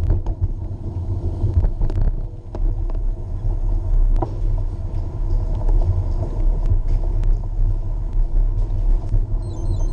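Steady low rumble of wind buffeting and wheels rolling over pavement, picked up by a camera mounted on a moving ride, with scattered faint clicks and knocks.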